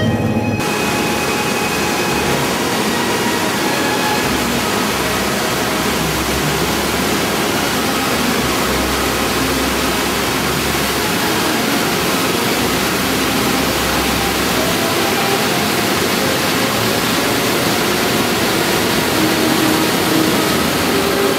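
Water pouring over a dam spillway: a loud, steady rush that cuts in about half a second in, where music stops.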